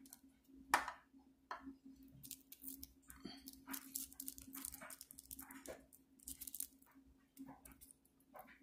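Faint, irregular paper rustling and small handling taps as a paper cartridge tube is glued and pressed on a cartridge former, over a steady faint hum.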